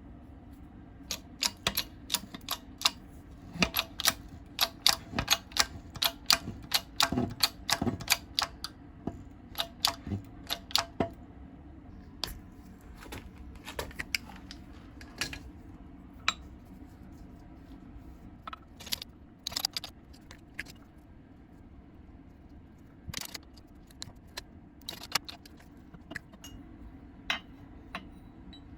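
Hand-handled metal tools and parts clinking and tapping: a quick run of sharp metallic clicks, then scattered ones, over a steady low hum.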